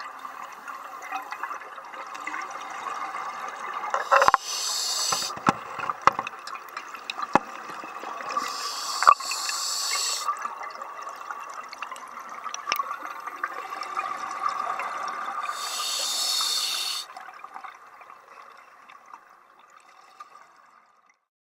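Scuba diver breathing underwater through a regulator: a steady bubbling rush of exhaled air, with a hissing burst every five seconds or so and a few sharp knocks. It fades away near the end.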